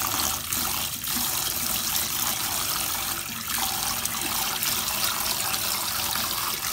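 Kitchen tap running steadily into a steel bowl of rice in a stainless-steel sink, the rice being rinsed under the stream before cooking.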